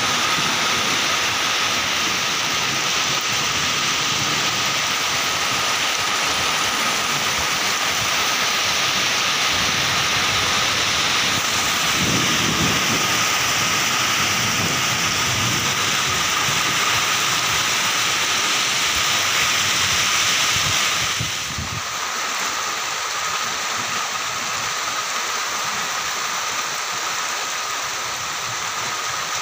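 Heavy rain pouring down steadily, with a low rumble about twelve seconds in. About 21 seconds in the rain sound turns a little quieter and thinner.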